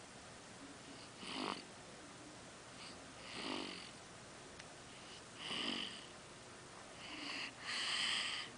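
A baby snoring: about four snoring breaths roughly two seconds apart, the last one near the end the longest and loudest.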